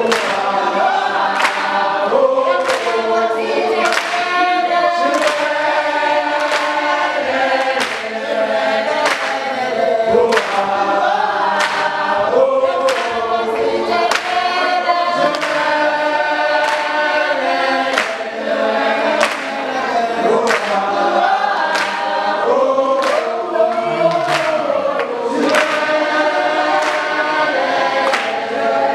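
A crowd singing together in chorus, kept in time by steady hand claps a little more than once a second.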